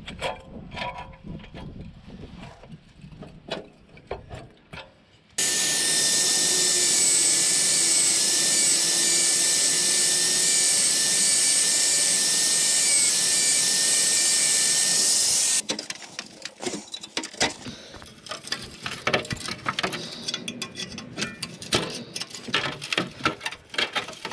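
Angle grinder with a thin cutting disc cutting through an exhaust pipe for about ten seconds in the middle, a loud steady hiss with a constant high whine. Before and after it, irregular metal knocks and clanks from tools working the pipe joint.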